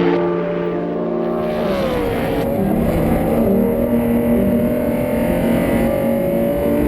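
Racing car engine running hard. Its pitch drops about two seconds in, then climbs slowly as it pulls up through the revs.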